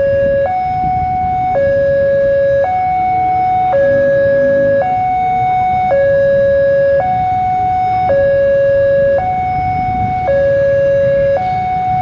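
Level-crossing warning alarm sounding a steady two-tone hi-lo signal, switching between its lower and higher tone about once a second, warning that a train is approaching. A low rumble lies beneath it.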